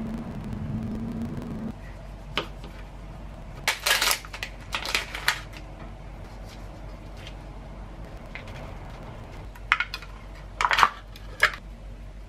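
Kitchen food-prep handling sounds. A low steady hum stops after about two seconds. Then come short crinkly rustles, as from a plastic packet of frozen mango being handled, and later a few sharp clicks and scrapes as a spoon scoops Greek yogurt from a plastic tub into a wooden bowl.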